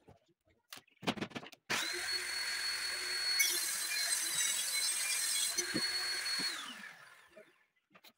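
Table saw built into a workbench cutting a large sheet of board. A loud steady high whine comes in abruptly about two seconds in and winds down with falling pitch near the end as the motor stops, with knocks of the board being handled just before.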